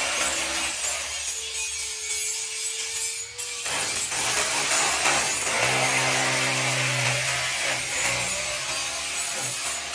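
Handheld corded electric drill running, its motor whining over the grinding of the bit boring into brick and mortar. It breaks off briefly a little over three seconds in, then drills on.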